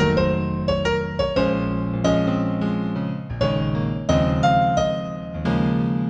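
Solo piano playing a slow New Age instrumental in A minor: single melody notes struck one after another over sustained low chords, each note ringing and fading.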